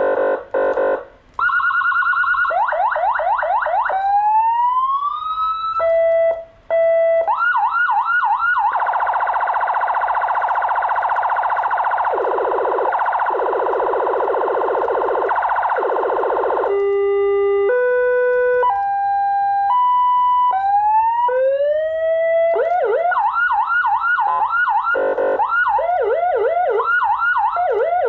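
A 200-watt HHS-replica electronic siren module sounding through a chrome horn speaker, switched from tone to tone by remote. It runs through fast yelps, a rising wail and short steady beeps, then a long continuous blare in the middle, then stepped high-low notes, and fast yelping again near the end.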